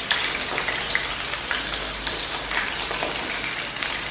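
Batter-coated boneless chicken pieces deep-frying in hot oil: a steady sizzle full of small crackling pops.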